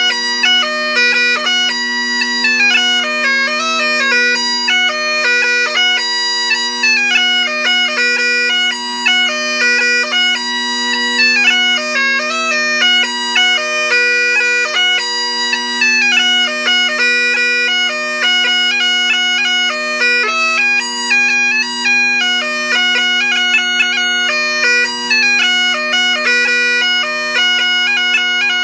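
Bagpipes playing a tune: the chanter's melody moves quickly from note to note over the drones' steady, unbroken tone.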